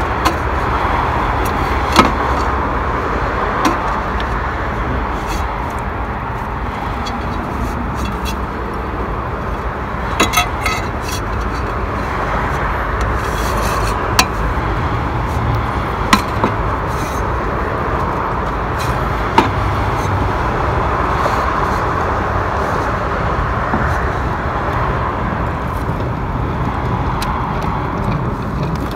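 Steady street and traffic noise, with scattered sharp clicks and knocks from car parts and tools being handled in an engine bay during an air-intake swap.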